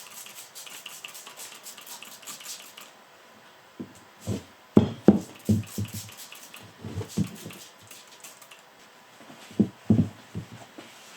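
Handling noise of objects being moved on a workbench: a run of light clicks and rustling, then groups of dull knocks about four seconds in and again near the end.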